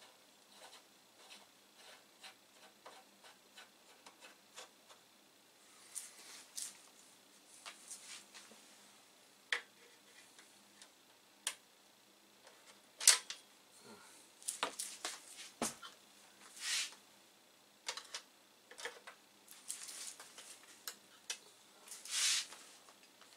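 Small brass screws being threaded by hand and tightened with a screwdriver at the mouse and joystick ports: a run of small metal clicks and scrapes. They are faint at first and get louder about six seconds in, with the sharpest click about halfway through.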